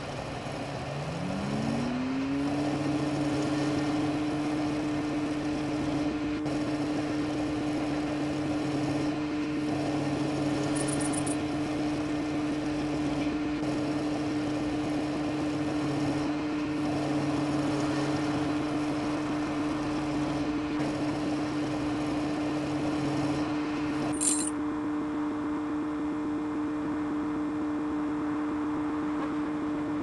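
A small motor spinning up over about two seconds, then running at a steady, even whine. A short high chirp comes about three quarters of the way through.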